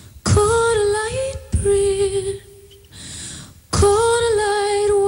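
A woman singing unaccompanied in three short phrases, the pitch sliding between held notes, with a pause before the last phrase begins.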